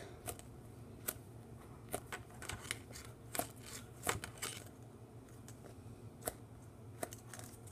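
Faint handling noise from a foam squishy toy being squeezed and turned over in the hands: scattered small clicks and rustles, a few a second, with no steady sound.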